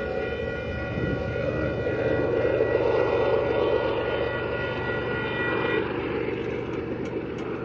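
Distant diesel locomotive air horn held as one long steady chord that cuts off about six seconds in, over the low rumble of the approaching train.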